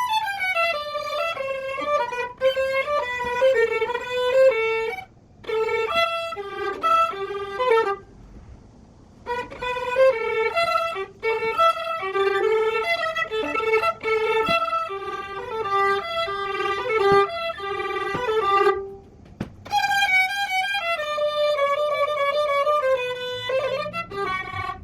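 Solo violin played by an adult learner in practice, phrases of bowed notes broken by short pauses about five seconds in, for about a second around eight seconds in, and briefly near nineteen seconds.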